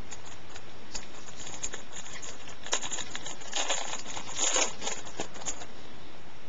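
Foil trading-card pack wrapper crinkling and being torn open by hand: a run of quick crackles and rustles that starts about a second in, is thickest in the middle and stops about a second before the end.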